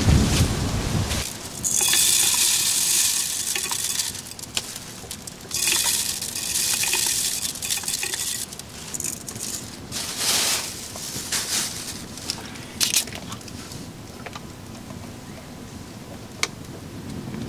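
Dry rice grains pouring and rustling in a plastic bag around a metal drink can, in several bursts of hiss, with small clicks and ticks in between. A low rumble cuts off about a second in.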